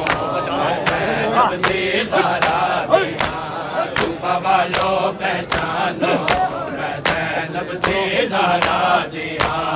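Crowd of mourners doing matam, beating their chests in unison with sharp slaps about one and a half times a second, while many voices chant a noha refrain in time with the beats.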